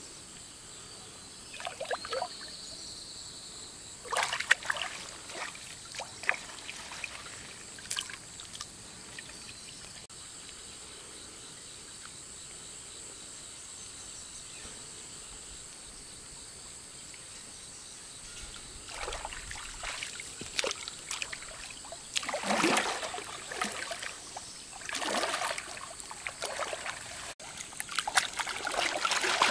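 Water splashing and trickling in irregular bursts, heavier near the end, over a steady high-pitched whine.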